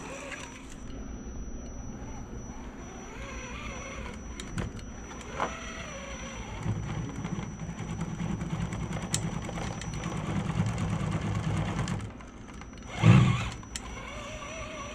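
Axial SCX10 RC crawler's electric motor and gear train running under load as the truck crawls up a wooden ramp, the drone stronger from about six to twelve seconds in. There are a few clicks, and a loud thump near the end.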